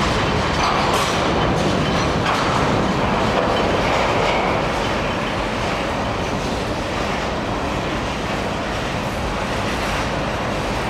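Freight train cars rolling past close by, steel wheels running and clacking on the rails. The sound is a little quieter after about four and a half seconds.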